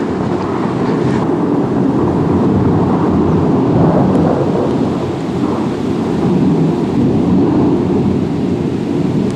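Thunder rumbling on and on through a heavy thunderstorm, with rain hissing underneath. The rumble swells a little a few seconds in and again past the middle.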